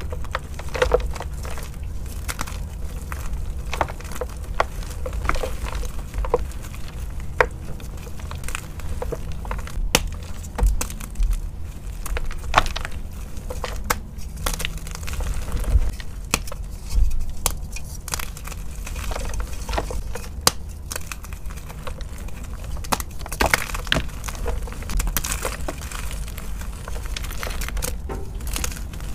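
Dyed gym chalk blocks being crushed and crumbled by hand: irregular crunches and crackles, with a steady low rumble underneath.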